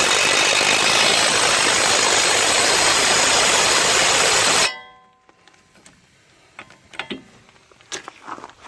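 3/8-inch DeWalt impact wrench hammering the axle nut tight, a loud, steady rattle that stops suddenly about four and a half seconds in, leaving a brief metallic ring. A few light clicks and knocks follow.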